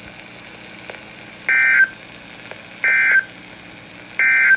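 EAS end-of-message (EOM) SAME data bursts: three short, identical two-tone digital screeches about a second and a half apart, signalling the end of the severe thunderstorm warning.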